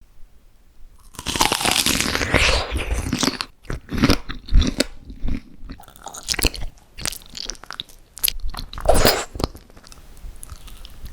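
Close-miked eating: crisp bites and crunching with wet chewing, one long crunchy stretch about a second in, then a run of short crunches and clicks and another loud bite near the end.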